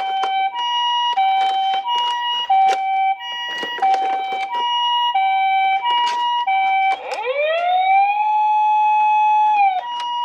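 Toy ambulance minicar's electronic siren playing the two-tone hi-lo "pee-po" pattern, the two notes alternating evenly. About seven seconds in it changes to a wail that rises and then holds one steady note until near the end. Clicks and knocks sound over it.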